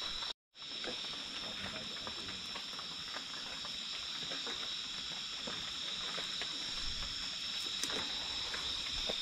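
Night insect chorus, crickets giving a steady high-pitched drone, with a few faint clicks and taps close by. The sound cuts out completely for a moment just after the start.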